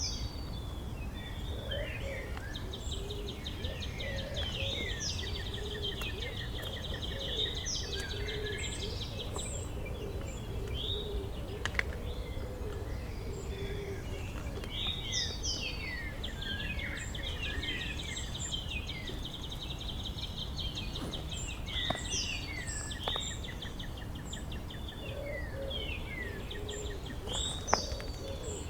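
Several birds chirping and trilling at once, with quick sweeping calls, rapid trills and some lower warbling notes over a steady low rumble.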